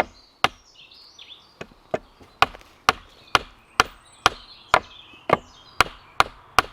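Steady, rhythmic hammer blows, about two a second, driving a wooden dowel peg into a hole in a wooden sawhorse.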